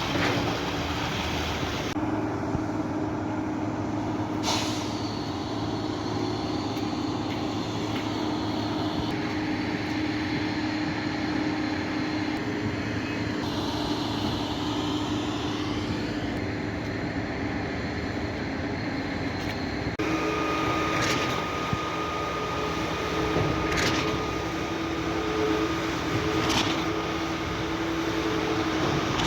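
Heavy diesel truck engines of a concrete pump and mixer trucks running steadily, with a few sharp knocks in the second half.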